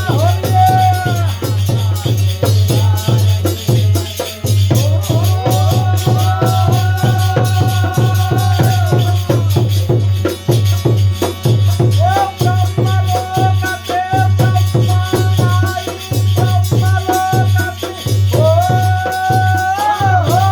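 Holi folk song music: a steady, even drum beat with shaken rattling percussion, under a melody of long held notes that comes and goes in phrases.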